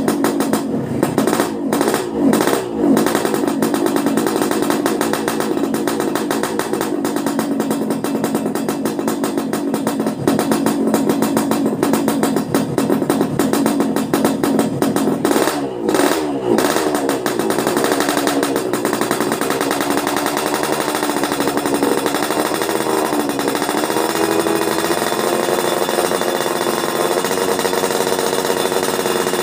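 Yamaha RX-King 135cc two-stroke single with an aftermarket exhaust, revved on its stand by hand throttle: quick throttle blips near the start and again about halfway, then held at a steady fast idle.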